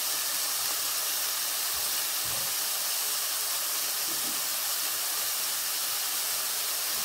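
Onion, tomato and dried red chillies sizzling in oil in a kadai: a steady, even hiss.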